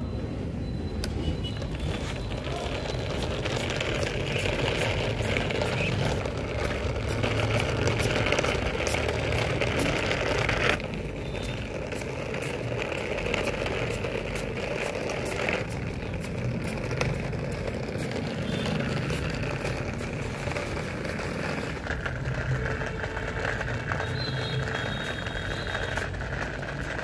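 Small battery-powered DC motor of a cardboard toy truck running steadily while its plastic wheels roll over rough concrete, with a continuous whirr and many small clicks and rattles from the wheels and grit.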